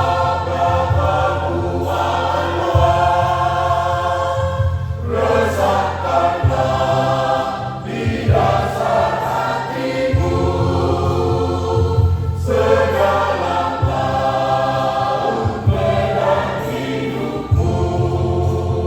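Church choir singing a hymn in several parts, phrase after phrase, over steady low held bass notes that change every few seconds.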